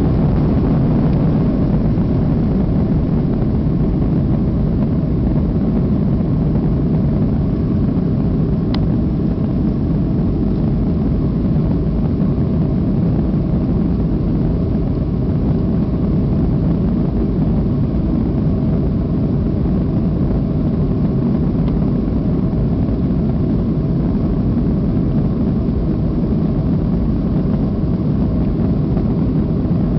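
Airliner's jet engines at takeoff thrust, heard from inside the passenger cabin as a loud, steady rumble.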